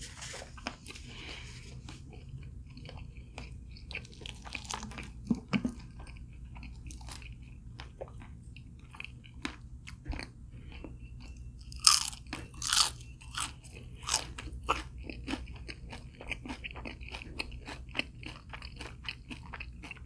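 Close-miked biting and chewing of crispy fried chicken: a long run of sharp crunches, the loudest a cluster of bites about twelve to thirteen seconds in.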